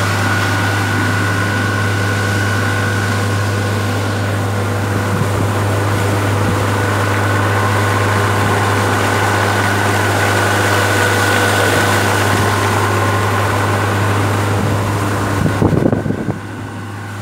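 Suzuki 115 outboard motor running steadily at cruising speed, a constant low drone with a steady higher whine, over the rush of wind and water past the boat. Near the end there are a few knocks, after which the drone drops away.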